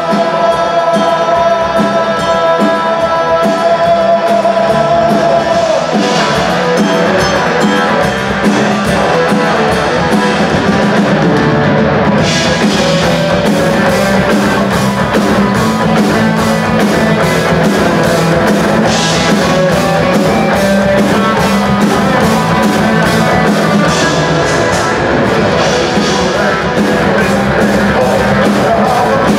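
Folk metal band playing live: distorted electric guitars, bass and drum kit with male vocals. A long held note carries the first few seconds, then the full band drives on with steady drumming.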